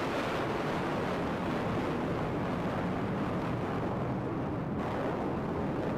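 Jet engine noise from a low flypast of fighter jets, a MiG-21 Bison with two MiG-29s and two Su-30s: a loud, steady rushing noise holding at one level.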